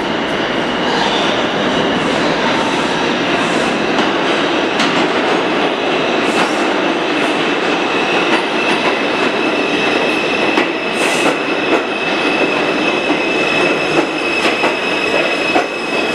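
R142 subway train pulling into the station, rolling over the rails with a steady rumble and scattered clacks. A thin, steady high-pitched squeal starts about two seconds in and grows stronger in the second half as the train slows alongside the platform.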